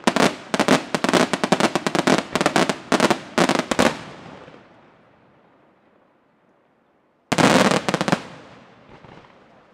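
Aerial fireworks shells bursting in a rapid salvo of sharp bangs for about four seconds, then dying away. A second quick volley of bangs comes near the end.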